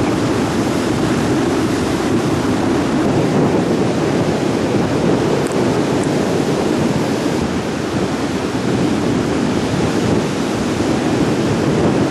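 Surf on a beach in strong wind, with wind buffeting the microphone: a steady, loud rushing noise.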